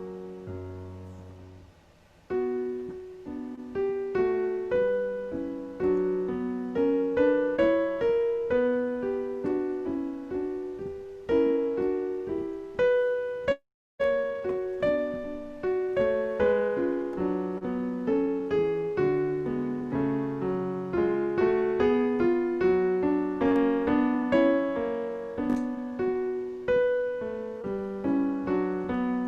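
Solo piano playing a slow, gentle piece, its notes struck and left to ring and fade. The sound cuts out completely for a split second about halfway through.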